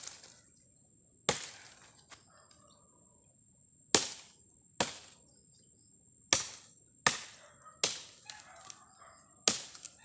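Firewood being chopped with a blade: about seven sharp strikes at uneven intervals, each dying away quickly.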